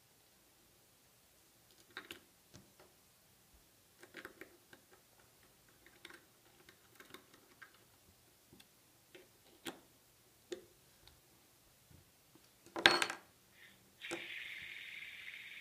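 Small metal parts of a can seamer seaming roll and pin assembly being handled and fitted back together by hand, making scattered light clicks and taps, with one louder metallic clatter about 13 seconds in. A steady hiss starts about a second later.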